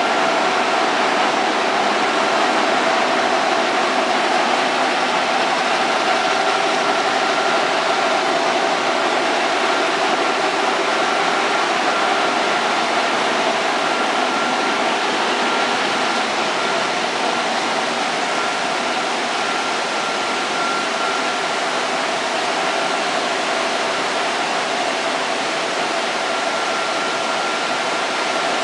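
The machinery of a small wheat flour mill running: a steady, dense machine noise with a faint high whine that comes and goes.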